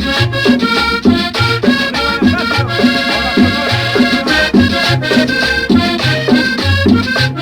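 Colombian cumbia music with a steady dance beat, a bouncing bass line and held melodic tones.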